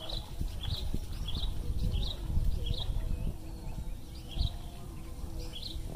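A bird repeating a short high chirp over and over, roughly every half to two-thirds of a second, over a low gusty rumble of wind on the microphone.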